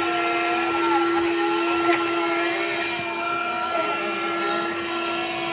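Window-cleaning robot's suction fan running with a steady whine, holding two constant tones.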